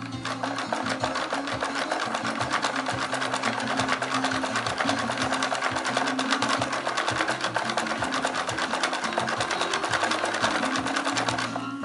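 Hand-cranked wooden scale model of a threshing machine clattering as it is turned: a fast, even stream of small wooden ticks that stops shortly before the end.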